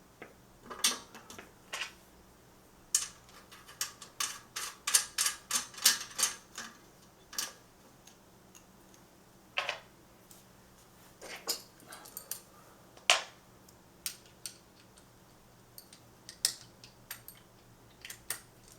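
Irregular metallic clicks and clinks of small hardware being handled and fitted: a training-wheel bracket, retaining washer and axle nut going onto a kids' bike's rear axle, with a quick run of clicks a few seconds in.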